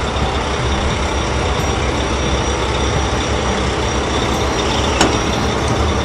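Heavy truck engine sound effect, running steadily as the vehicle drives, with a sharp click about five seconds in.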